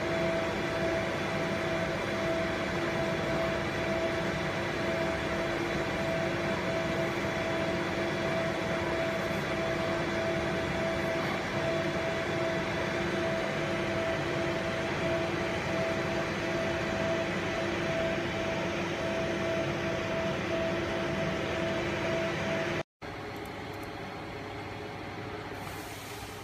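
Laser marking machine with a rotary chuck attachment running: a steady hum carrying two steady tones, cut off about 23 seconds in, leaving a quieter hum.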